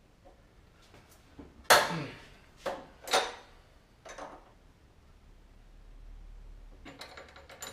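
Metal clanks and clinks of a wrench on the front brake caliper bolts of a Yamaha XMAX 250 as they are loosened: a sharp clank about two seconds in, a few more knocks over the next couple of seconds, then a run of light clicks near the end.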